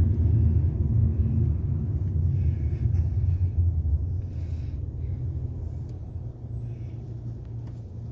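Low, steady road and engine rumble of a moving car heard from inside the cabin, gradually growing quieter.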